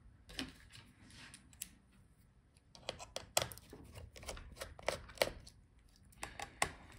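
Small precision screwdriver working the heatsink mounting screws of a laptop: a scattering of short metal clicks and light scrapes, coming closer together from about three seconds in.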